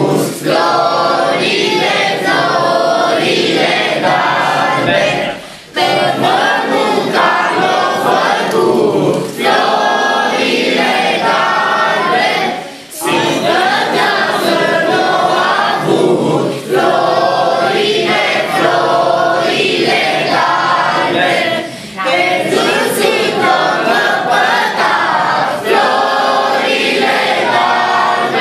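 A group of children singing a Romanian Christmas carol (colind) together, in phrases with brief pauses between verses.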